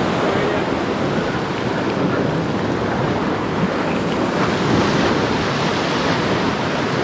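Ocean surf breaking against a rocky shoreline, a steady rush of waves, with wind buffeting the microphone.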